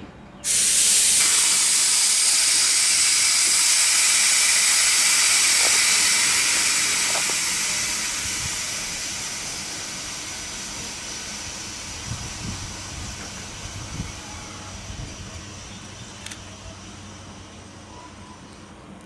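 Strasburg Rail Road No. 90, a 2-10-0 steam locomotive, venting steam while standing: a loud hiss that starts abruptly, holds steady for several seconds, then slowly dies away. A few faint clanks are heard near the end.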